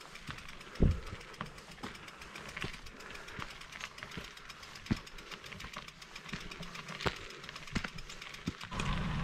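E-mountain bike rattling over a rough trail: irregular clicks and knocks over a light hiss. Near the end the sound changes abruptly to a louder steady rumble with a faint whine.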